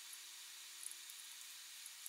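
Faint handling of a metal hard-drive caddy: a couple of small clicks about a second in, over steady hiss and a faint low hum.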